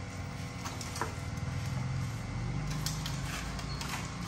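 Light clicks and knocks of aluminium window-frame profiles being handled and pushed together by hand, a few scattered taps, over a steady low hum.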